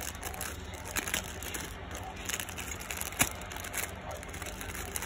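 Thin clear plastic bag crinkling and crackling under the fingers as a ring is handled inside it, in an irregular run of small crackles with one sharper crack a little after three seconds in.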